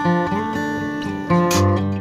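Background music: acoustic guitar playing a melody over chords.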